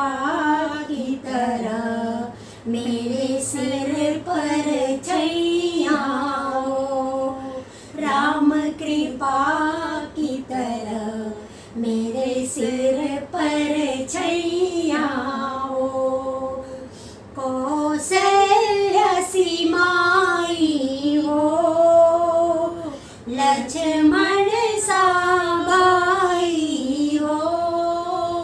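Two women singing a Hindi devotional bhajan to Ram, unaccompanied, in long, drawn-out melodic phrases with short breaths between them.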